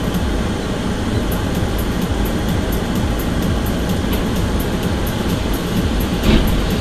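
Steady low rumble of a car's cabin and road noise picked up by a dashcam, with a short louder thud a little after six seconds in.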